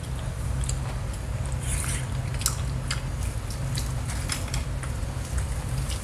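A person chewing a mouthful of battered fried squid close to the microphone: wet, squishy chewing with scattered small crunches and clicks, over a steady low hum.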